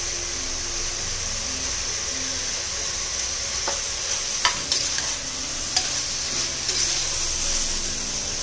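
Sliced onions sizzling in hot sunflower oil in an aluminium pressure cooker, stirred with a steel spoon. From about halfway through, the spoon clinks and scrapes against the pot a few times.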